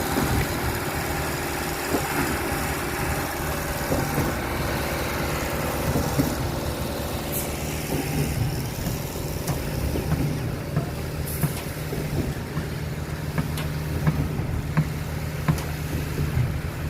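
Heavy diesel engine running steadily, with scattered sharp knocks and clatter on top.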